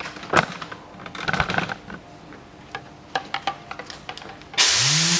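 A few light clicks and knocks from handling and adjusting a Tornador air-powered cleaning gun, then near the end a loud hiss of compressed air blasting through it, with a rising tone underneath.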